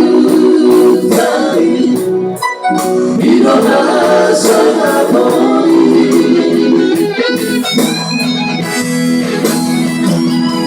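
A song: a singing voice over instrumental accompaniment.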